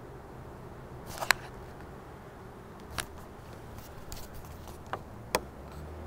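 Faint, steady low background noise broken by a handful of sharp clicks. The loudest click comes about a second in and another near the end.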